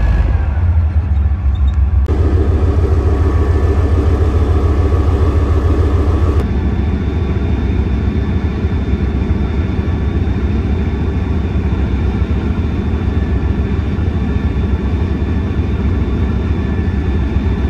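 Leopard 1 tank engines, the 37.4-litre ten-cylinder 830 hp diesel, running steadily with a deep, even rumble. The sound changes abruptly twice, about two and six seconds in.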